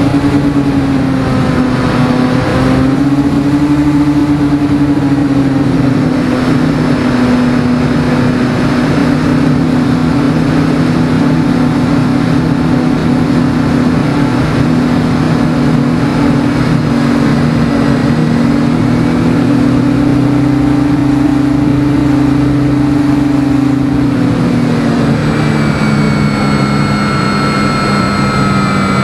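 Electric motor and propeller of a Phoenix 2000 RC glider running under power, a steady hum over a constant rush of noise, kept on throttle because the canopy-mounted camera acts as an airbrake. The hum drops slightly in pitch about 25 seconds in, and higher whining tones come in near the end.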